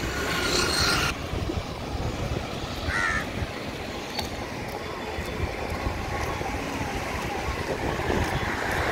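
A crow caws once, briefly, about three seconds in, over a steady low rumble of wind on the microphone.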